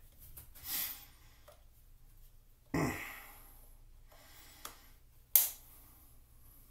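Hands handling a trimmer blade and its box: a short rustle near the start, a dull knock about three seconds in, a small click, then a sharp, louder click about five and a half seconds in.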